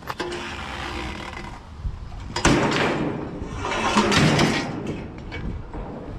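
Steel hand truck rolling over asphalt, then loud metallic rattling and clanking as it is loaded into a steel mesh utility trailer, with two louder clattering stretches about two and a half and four seconds in.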